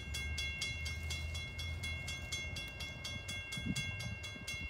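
Railroad grade crossing bell ringing in rapid, even strokes while the crossing gates come down, over a low steady rumble.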